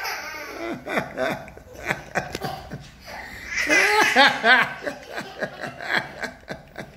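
A young child laughing heartily in quick repeated bursts, with a second, stronger run of laughs about halfway through.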